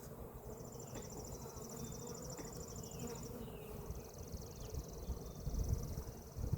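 A mass of honeybees humming steadily, with two high, rapid trills of about three seconds each, the second a little lower in pitch.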